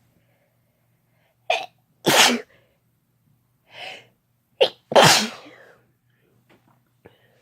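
A person sneezing twice, about three seconds apart, each loud sneeze led by a shorter wind-up sound.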